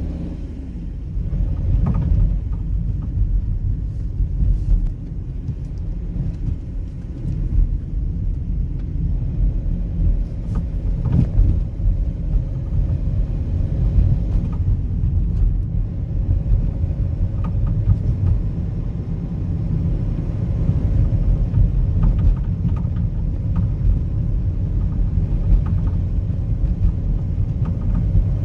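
Fiat Doblo 263 driving with a steady low road rumble, broken by irregular short knocks and rattles from the front suspension. The clunking persists after new drop links, with no play found in the ball joints or steering rack.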